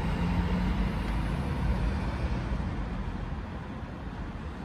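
A fire-service truck's diesel engine running as it drives past, a steady low drone that slowly fades over the second half.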